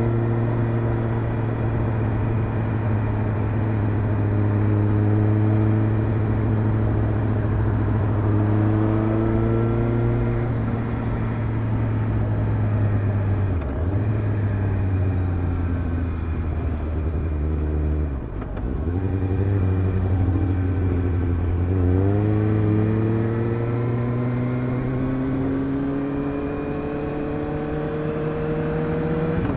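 Suzuki GSR750's inline-four engine heard through a Fuel stainless round slip-on exhaust with the dB-killer fitted, running at part throttle. The revs rise gently, drop back briefly twice around the middle, then climb steadily through the last third.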